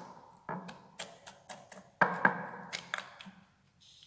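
Knife blade scraping and clicking against the side of a white fluted dish as it is worked around the edge of a set crème caramel to loosen it from the mould. A run of sharp ticks and short scrapes, loudest about two seconds in.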